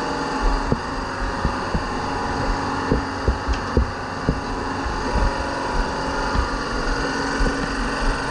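A workshop machine running with a steady hum, under irregular knocks and clatter of wooden and metal tools being handled.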